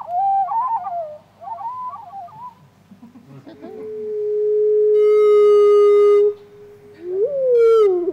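Recording of a hermit thrush song played back slowed down. Sliding and trilled phrases fade out in the first seconds. About three and a half seconds in, a lower and slower playback begins with the long, steady introductory whistle. Near the end it breaks into falling slides and a fast trill.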